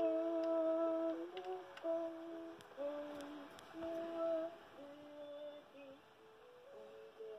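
VTech sheep cot mobile playing an electronic lullaby melody in simple held notes, two or three at a time, with a few faint clicks. The tune grows quieter from about five seconds in.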